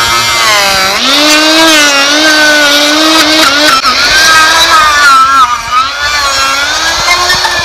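Long-shaft electric die grinder with a carving bit cutting into bougainvillea deadwood: a loud, steady motor whine whose pitch sags and recovers as the bit bites into the wood and frees.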